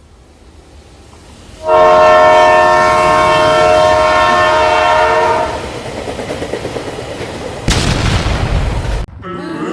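A train approaching with a rising rumble, then a locomotive air horn sounding a loud multi-note chord for about four seconds. The train keeps rumbling by, and about eight seconds in a very loud noisy blast breaks in and cuts off abruptly.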